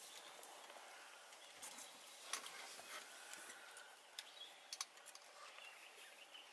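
Near silence: quiet bush ambience with faint rustling and a few soft clicks.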